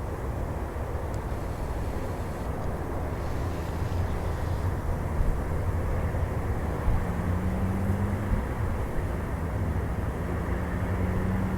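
Jet airliner engines rumbling, growing slowly louder, with a faint hum that edges up in pitch from about seven seconds in.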